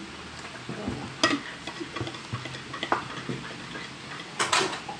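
Metal spoon stirring milk in a stemmed glass, clinking against the glass now and then. Near the end a quick run of clinks as a mug is tipped over the glass and a spoon works at it.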